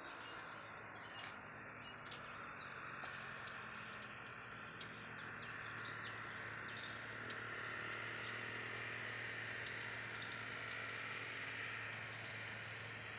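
Faint outdoor ambience: a steady high insect drone with scattered brief chirps, over a low steady hum that grows slightly stronger about halfway through.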